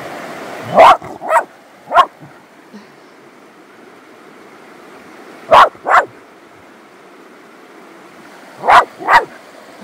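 A dog barking: three sharp barks about a second in, two more near the middle and two near the end.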